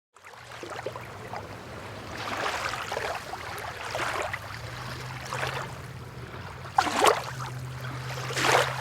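Motorboat engine running with a steady low drone, under water rushing and splashing against the hull in repeated surges. The loudest splashes come near the end.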